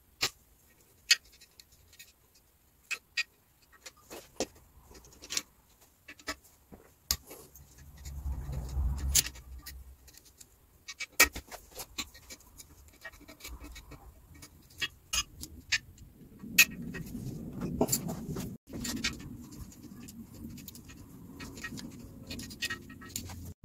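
Sharp, irregular metallic clicks and clinks of a ratchet and socket working the main bearing cap bolts of the Citroen Saxo VTS engine block, with two spells of low handling rumble.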